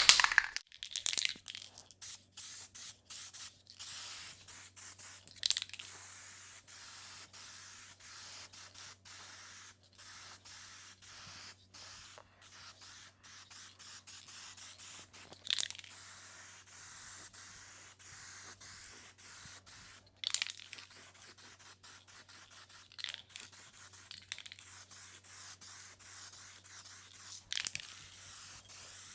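Clear coat being sprayed onto a car door: a hissing spray in passes, broken by many short pauses, with a few louder spurts. A steady low hum runs underneath.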